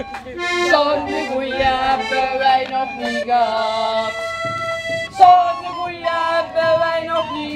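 Small piano accordion and a recorder playing a tune together, the recorder on high held notes over the accordion's chords.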